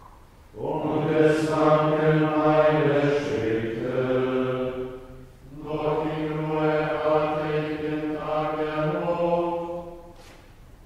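Men's voices chanting Tenebrae plainchant, held mostly on one steady reciting note. The chant comes in two long phrases with a short breath between them about five seconds in.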